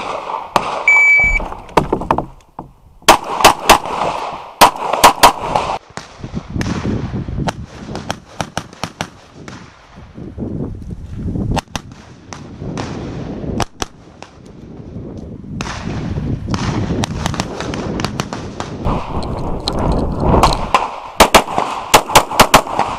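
Electronic shot timer beeps once about a second in, then a competition handgun fires string after string of rapid shots, often in quick pairs, with short pauses between strings as the shooter moves between positions on an IPSC stage.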